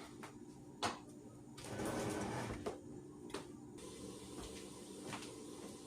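Kitchen handling sounds: a single knock about a second in, then about two seconds of scraping with a few clicks in it, over a faint steady hum.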